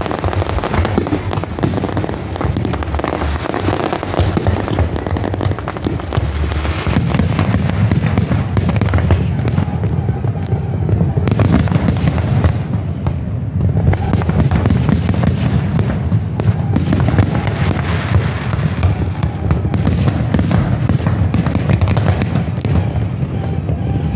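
Aerial fireworks shells bursting one after another in quick succession, booms running into each other with no real pause.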